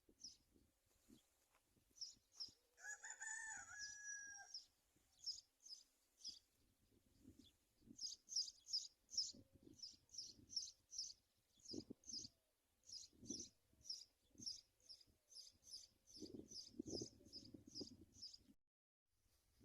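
A rooster crows once, about three seconds in, over the rapid, repeated chirping of small birds. The whole scene is faint, with a few soft low thumps in the later part.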